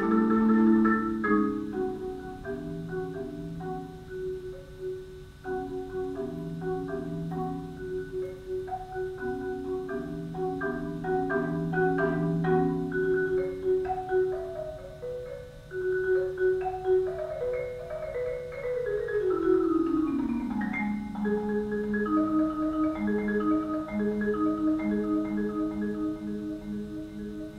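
Solo marimba played with four mallets: a flowing, repeating pattern of notes. About two-thirds of the way through, a run of notes steps down in pitch, and the pattern carries on in a lower register.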